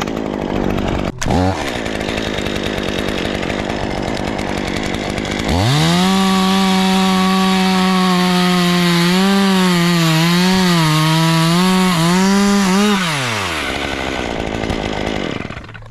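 Chainsaw idling, then revved to full throttle about five seconds in and held, its pitch dipping and recovering several times, before dropping back to idle.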